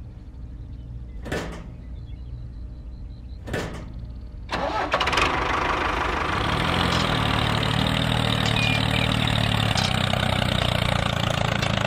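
Tractor engine starting about four and a half seconds in, then running steadily. Two short swishes come before it.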